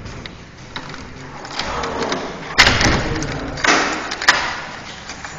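A bunch of keys scraping and clicking in a door lock while someone fumbles to unlock the door, with a few sharp clicks about two and a half and four seconds in.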